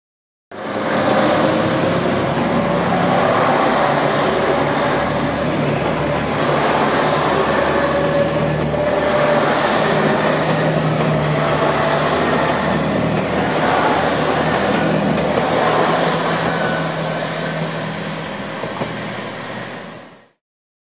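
A JR Hokkaido 283 series diesel multiple unit pulling out of a station, its diesel engines running under power as the cars roll past on the rails. The sound cuts in abruptly, gets quieter over the last few seconds and stops short.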